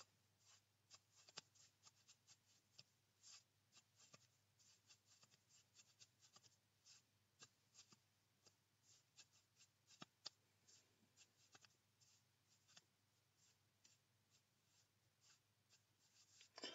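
Faint, irregular light clicks and ticks, several a second, over a steady faint low hum.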